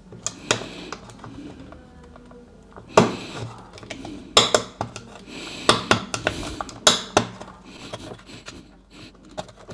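Irregular scraping and sharp clicks of a hand tool working the plastic housing of a stick vacuum's brush motor mount, trimming away plastic to move the motor back and tighten the drive belt.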